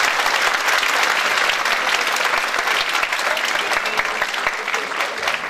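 Audience and cast applauding, a dense clapping that slowly dies down near the end.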